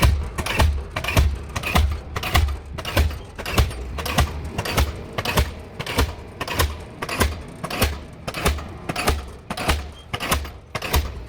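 Diesel pile-driving hammer running, striking the pile in a steady rhythm of heavy, even blows, about three every two seconds.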